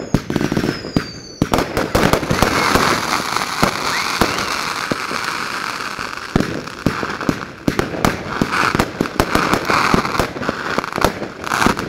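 Fireworks display: a quick run of sharp bangs, then from about a second and a half in a dense crackling that keeps on under further bangs.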